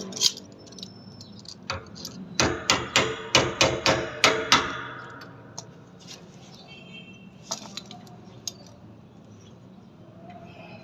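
Sharp metal knocks: a quick run of about nine ringing strikes a couple of seconds in, like a hammer tapping a water-tank fitting to seat it flush, then a few lighter knocks later on.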